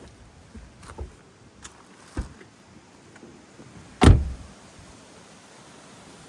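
Footsteps on a natural path outdoors: a few slow, scattered steps heard as soft thuds with some crunching, the heaviest about four seconds in.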